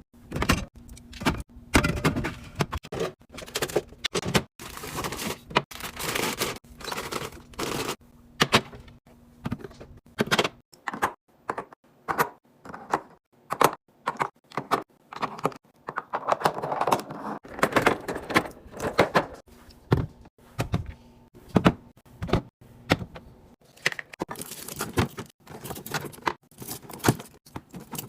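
Containers and groceries being handled and set into place: a steady stream of irregular clicks, clinks and knocks of plastic and glass, with short stretches of rustling or scraping.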